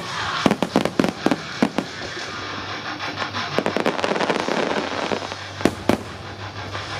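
Star mine fireworks shells bursting: a quick volley of sharp bangs in the first two seconds, a stretch of crackling in the middle, then two more loud bangs near the end, with music playing underneath.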